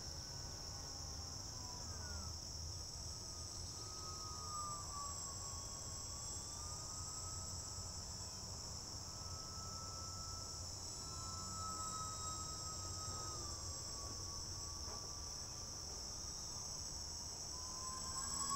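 A steady, high-pitched chorus of insects that does not let up, with a faint thin whine underneath that drifts slowly up and down in pitch.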